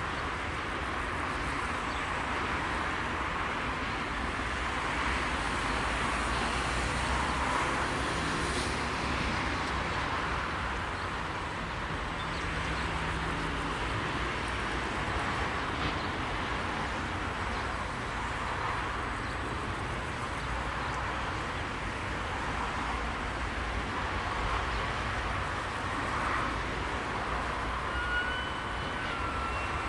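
Steady rushing outdoor background noise with no distinct event, and a faint held tone near the end.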